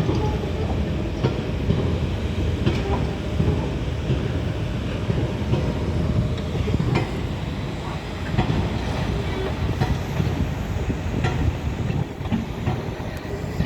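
Pile driving: heavy machinery rumbling steadily, with sharp knocks at irregular intervals, about one every second or two.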